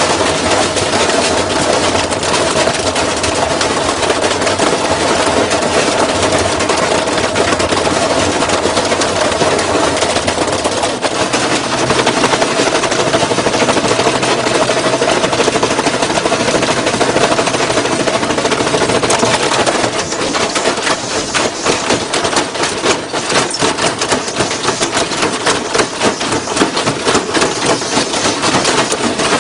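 Washing machine shaking itself apart, a loud continuous rattle of rapid knocks over a steady motor whine. About two-thirds of the way through the knocking turns choppier and more irregular.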